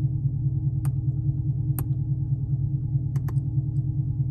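A 6th-gen Camaro SS's straight-piped 6.2 L V8 idling steadily, with four sharp clicks of buttons being pressed while he hunts for the garage door opener button; the last two clicks come close together.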